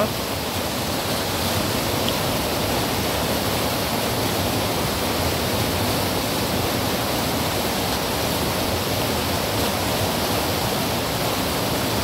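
Mountain river rushing over boulders in white-water rapids: a loud, steady, even rush of water.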